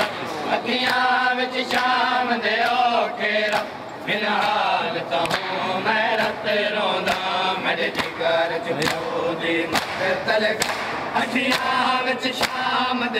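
Shia mourners chanting a Muharram lament together, with sharp slaps of matam chest-beating at a steady beat of roughly one a second under the chanting.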